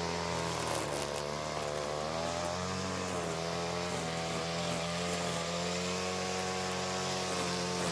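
Hedge trimmer running steadily, its motor pitch wavering slightly up and down, with small dips about a second in and around three seconds in.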